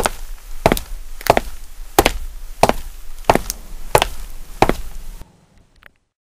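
Hard-soled shoes stepping on a concrete sidewalk at a steady walking pace, about three sharp heel clicks every two seconds. The steps stop suddenly about five seconds in.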